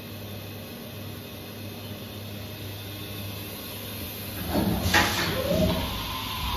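A steady low hum. About four and a half seconds in, louder handling noise takes over, with a sharp knock near the five-second mark.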